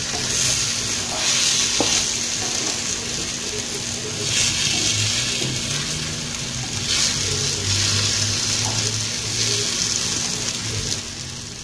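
Scrambled eggs with chopped tomato, onion and chile sizzling in a frying pan while being stirred with a spatula. The frying swells louder a few times as the mixture is turned and eases off near the end.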